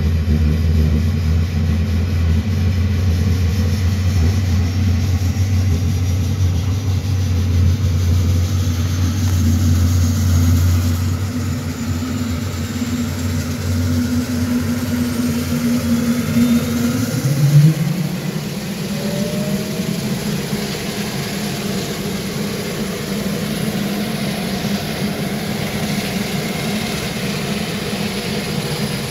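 Saab 340's General Electric CT7 turboprop engines during start-up: a steady low drone with a faint high whine that climbs slowly in pitch over the first ten seconds. About seventeen seconds in, a brief rising note sounds, the deep drone drops away, and a lighter engine sound carries on.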